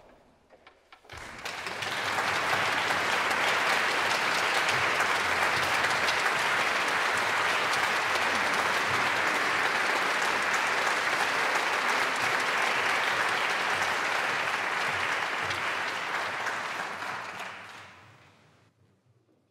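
Concert audience applauding: it starts about a second in, stays steady, then dies away near the end.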